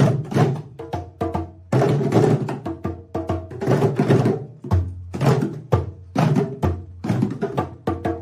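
A group of djembe hand drums played together: sharp slaps mixed with deep bass strokes. The playing is busy at first, then settles into a strong low stroke about once a second with lighter hits between.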